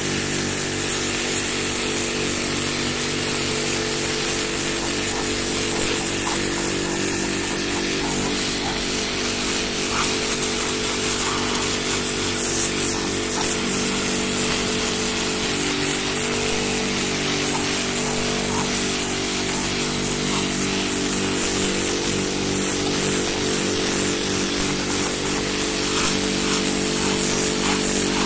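Pressure washer running steadily: the even hum of its pump motor under the hiss of the water jet spraying across clay roof tiles.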